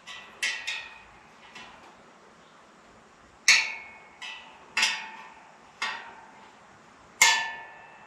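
A spoke wrench clinking against the spokes of a wire-spoked motorcycle wheel as the spoke nipples are tightened: about eight sharp metallic pings, each ringing briefly, irregularly spaced, the loudest about halfway through and near the end.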